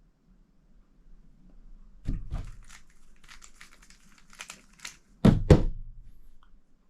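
Rubik's Cube being turned fast in a speed-solve: a quick run of plastic clicks and clacks lasting about three seconds, ending in two hard knocks about a second before the end.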